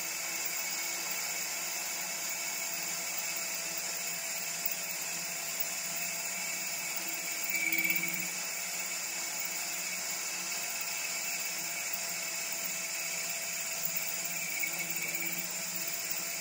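Milling machine spindle running steadily while a twist drill cuts a hole down through the cylinder block casting. The cutting swells louder briefly about eight seconds in and again about fifteen seconds in.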